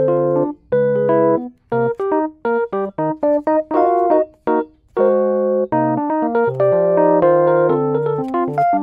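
Background music: a keyboard melody of separate notes, with short breaks between phrases.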